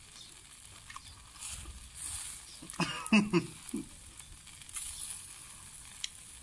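Steady sizzling hiss of beef skewers cooking on a small charcoal grill, with faint scattered ticks. About three seconds in, a man makes a short voiced sound of enjoyment while he chews.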